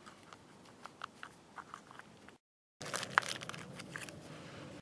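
Hands handling a fire-starting kit in a small hard plastic case: faint scattered clicks and rustles as cotton wool pads are pulled out and items are shifted. After a brief break, louder rustling and handling with one sharp click.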